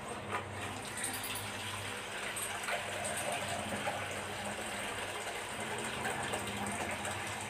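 Water running steadily, a little louder from about a second in.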